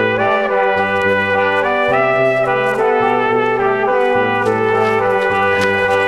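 Background music led by brass instruments, with notes changing about every second over a moving low part.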